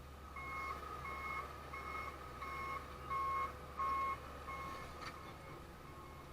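Excavator's motion warning alarm beeping at an even pace, about three beeps every two seconds, over the steady low running of its engine. The beeps grow fainter after about five seconds.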